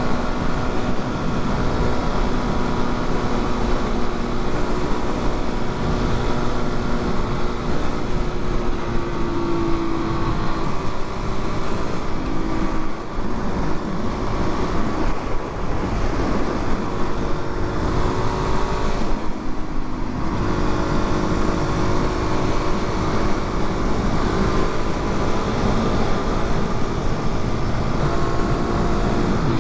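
Suzuki DR-Z400's single-cylinder engine running under way with steady wind rush. The engine pitch shifts up and down with speed, dropping briefly about two-thirds of the way through, as on a gear change or a roll-off of the throttle.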